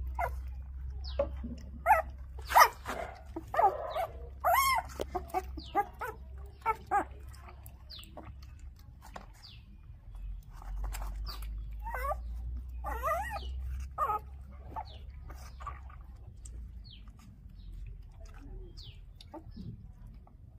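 Young puppies whining and yelping in short, high calls, several in quick succession in the first few seconds and again about two thirds of the way through, over a steady low rumble.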